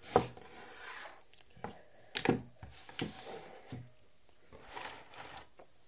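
Hand-tool handling on a wooden desk: pliers and red wire being picked up, moved and set down, giving a series of sharp clicks and knocks, the loudest right at the start and about two seconds in, with soft rustling between.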